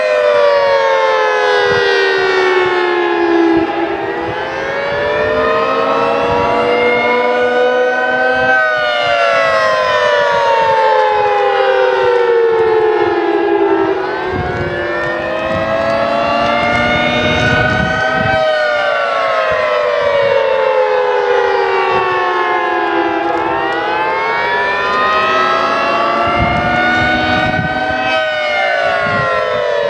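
Federal Signal 3T22 three-tone rotating siren sounding the attack signal: its chord rises and falls in a slow wail, peaking about every ten seconds, three times over.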